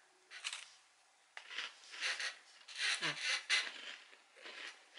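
A tiny chocolate chip cookie bitten and chewed close to the mouth: one short bite noise, a pause of about a second, then a run of irregular chewing noises.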